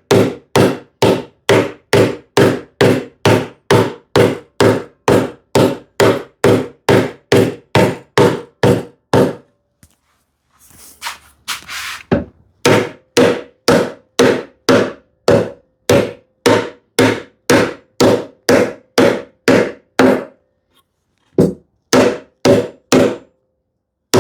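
Steady, even mallet blows on wood, about two and a half strikes a second, each with a short ringing knock. Near the middle the blows stop for a couple of seconds with a brief scrape, then resume.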